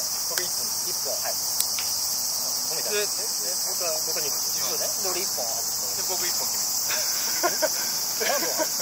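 Chorus of night insects chirring: a steady high-pitched drone that does not let up, with faint, low voices underneath.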